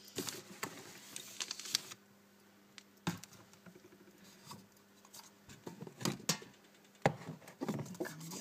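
Small handling noises from nail painting: a scratchy run of light clicks and rustles in the first two seconds, then scattered sharp taps and clicks with a few short scratchy bursts.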